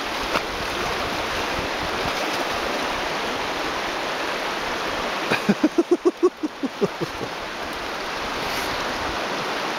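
Shallow stream running steadily while a dog wades and paws at stones in the water. A little past halfway, a voice makes a quick run of about ten short pitched sounds lasting about a second and a half.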